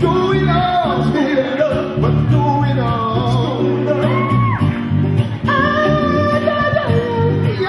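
Live acoustic music: a male singer's vocal lines with a long held note near the end, over strummed acoustic guitar and bass guitar.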